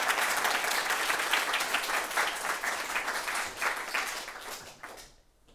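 Audience applauding at the end of a talk, a dense burst of clapping that thins out and dies away near the end.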